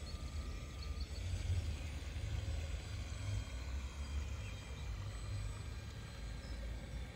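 Wind rumbling irregularly on the microphone, with a faint steady high whine from a radio-controlled model Mark V jet boat running across the water.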